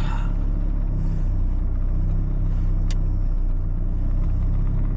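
Toyota Supra running, heard from inside the cabin as a steady low engine and road drone, with one brief click about three seconds in.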